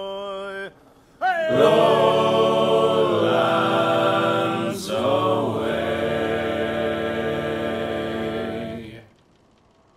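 Unaccompanied voices singing a sea shanty in harmony. One voice holds a note and stops, then several voices come in together on a long held chord that shifts once about halfway and ends about nine seconds in.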